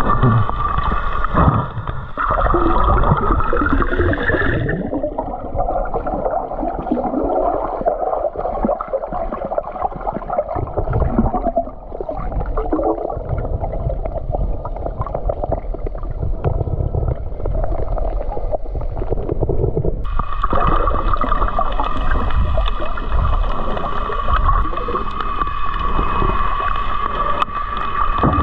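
Underwater gurgling and bubbling picked up by a camera submerged in the sea, with a steady high whine over it for the first few seconds that drops out and comes back about two-thirds of the way through.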